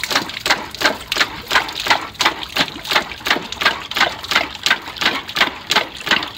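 Electric toy water gun firing in rapid-fire mode: a steady run of quick shots, about three a second, each spurt of water hitting a plastic bucket of water.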